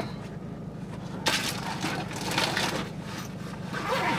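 Bag and food packaging rustling and crinkling in a few short bursts as things are rummaged through, over a low steady hum.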